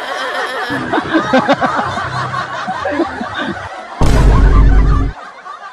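Edited-in meme audio: a voice with music, then a sudden very loud blast with heavy bass about four seconds in that lasts about a second before the sound fades away.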